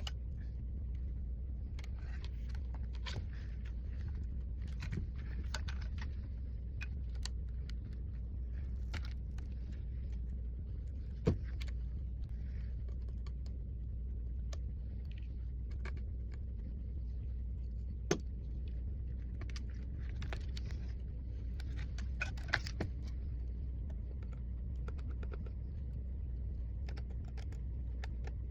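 Scattered light clicks, taps and small clatter of hand tools working on an iPad during a screen replacement, over a steady low hum. Two sharper single clicks stand out, about a third and two thirds of the way through.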